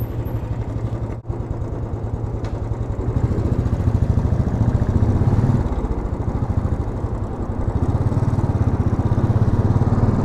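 2010 Royal Enfield Classic's single-cylinder engine running with a steady, even beat, getting louder about three seconds in and again near the end.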